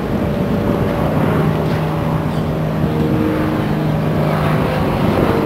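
Steady engine drone of a large motor yacht cruising past, a constant low hum with a few steady higher tones.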